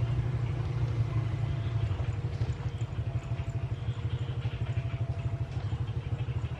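An engine running with a low, rapidly pulsing rumble that slowly fades toward the end.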